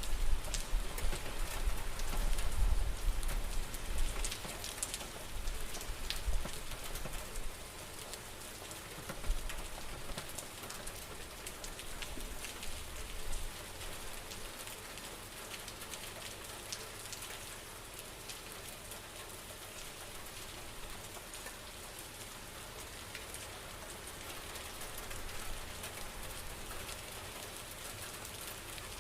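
Steady rain falling on a surface, a dense hiss with many distinct drop taps. A low rumble sits under it for the first several seconds and then eases off.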